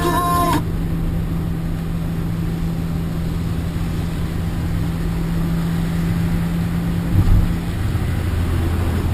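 Renault Kangoo 1.6 petrol engine and road noise heard inside the van's cabin while driving, a steady hum whose pitch drops lower about eight seconds in.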